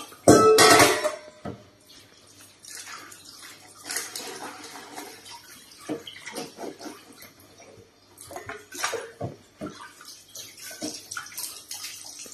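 Tap water running and splashing into a stainless-steel kitchen sink while cut taro is rinsed in a plastic basket and a pot lid is washed, with intermittent clatter of the basket, pot and basin. A loud splash and clatter comes about half a second in.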